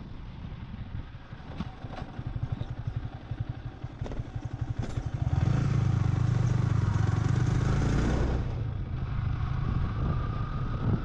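Yamaha sport motorcycle's engine running with an even pulsing beat at low revs. About five seconds in it suddenly gets much louder as the throttle opens and the bike speeds up, then eases back a few seconds later as it slows.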